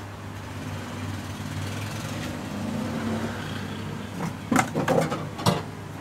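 Steady low hum, then a few sharp clicks and knocks about four and a half to five and a half seconds in.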